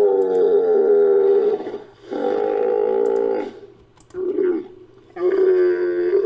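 Designed creature calls for Borissiakia, an extinct chalicothere, mixed from bull, camel and chalicothere sounds: a run of long, pitched, bellowing calls. Two long calls are followed by a short one about four seconds in, and another long call begins near the end.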